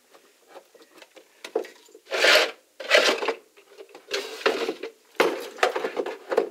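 Several short bursts of rubbing and scraping, the loudest from about two seconds in and the last running near the end.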